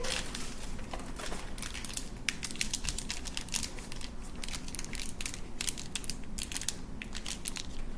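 Small wrapped candy crinkling as its wrapper is turned and squeezed between the fingers: a run of quick, irregular crackles throughout.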